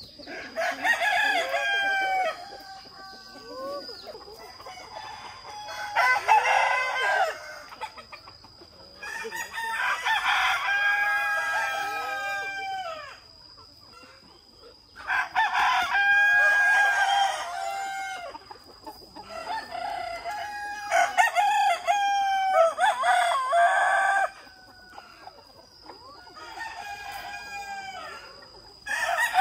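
Roosters crowing one after another, about six long drawn-out crows spaced a few seconds apart, some overlapping, with quieter chicken clucking between them.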